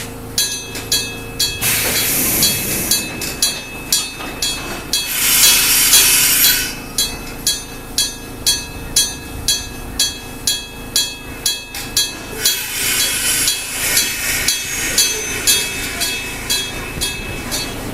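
A railway level crossing's electric gong (denshō) striking steadily about twice a second, each strike ringing on, while swells of rushing train noise rise and fade.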